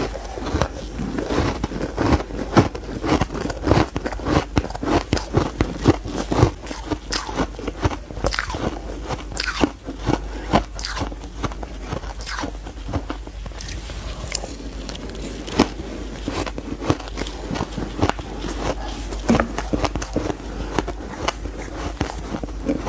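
Crumbly frozen ice being bitten and chewed, a rapid, continuous stream of crisp crunches.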